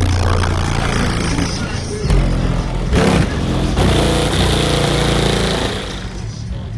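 Loud bass-heavy music from a car's sound system, mixed with vehicle noise.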